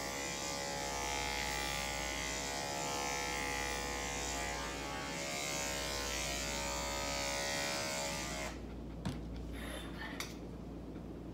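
Cordless dog clipper fitted with a #4 blade running with a steady buzz as it is drawn up the back of a Westie's tail, then switched off suddenly about eight and a half seconds in. Two light knocks follow.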